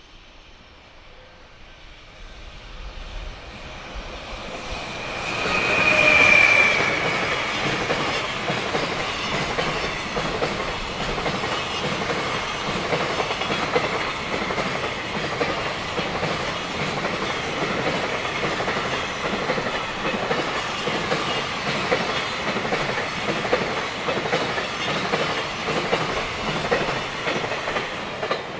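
JR Freight container train on an electrified main line approaching and passing close by. It is loudest about six seconds in as the front of the train goes past, with a brief high tone, then a long string of container wagons clatters steadily over the rail joints.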